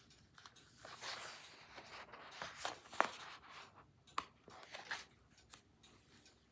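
A picture book's pages being turned and handled: a soft rustle of paper about a second in, followed by a few light taps and clicks.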